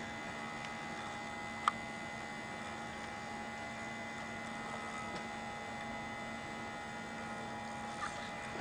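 A steady electrical hum of several fixed tones over faint hiss, with one sharp click about two seconds in.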